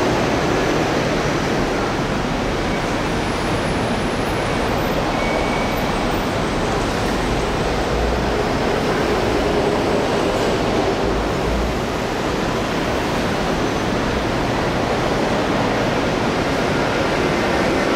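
Steady railway station platform noise: an even, continuous rumble and hiss with no single event standing out and no train passing.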